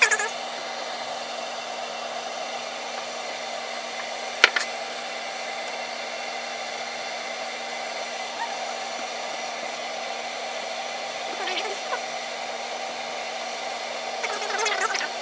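Electric brew kettle heating water toward the boil: a steady hiss from the water around the 5500-watt Camco element, with a faint hum. A single sharp click about four and a half seconds in, and a brief louder crackle near the end.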